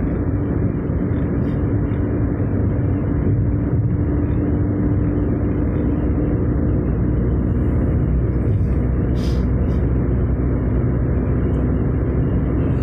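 Car driving steadily at speed on a smooth highway: even engine and tyre noise with a faint steady hum.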